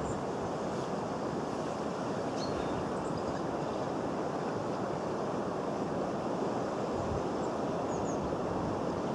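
Steady outdoor background noise, an even wind-like hiss, with a few faint, short, high chirps scattered through it.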